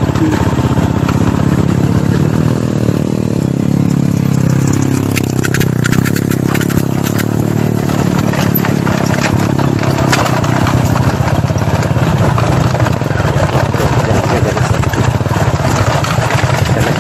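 Small vehicle engine running steadily, its pitch shifting a little. Some rattling comes through about five to seven seconds in.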